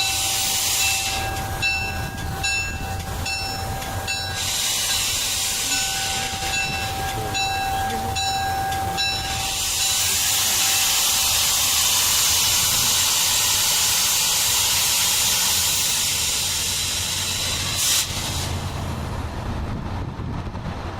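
A MARC commuter train's locomotive bell rings at about two strokes a second for the first half, then stops. A loud steady blast of air hissing follows for about eight seconds and cuts off sharply with a click, as the stopped train vents its air brakes. The locomotive's low idle rumble runs underneath.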